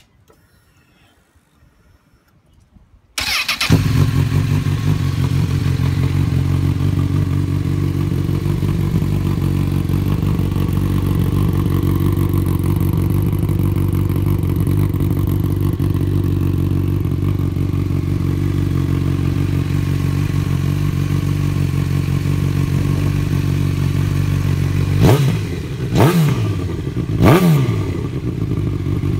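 Honda CB1000R's inline-four engine, breathing through a Yoshimura R77 three-quarter exhaust, starts about three seconds in and idles steadily, then is revved quickly three times near the end.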